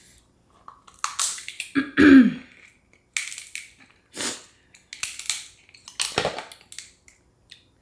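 Close-up eating sounds from a seafood boil: a series of short, separate cracks and wet mouth noises as crab legs and shellfish are broken open and eaten. A brief throaty vocal sound comes about two seconds in, the loudest moment.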